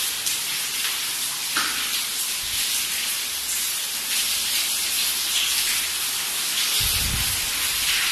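Steady hissing rush of rainwater leaking into the building through the roof after roofing work, with a brief low thump near the end.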